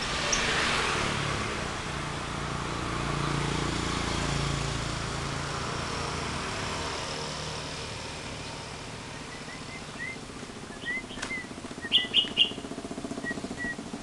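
Caged lovebirds chirping: a few short high calls start near the middle, then three loud, shrill calls in quick succession near the end. A broad rushing background noise swells and fades over the first half.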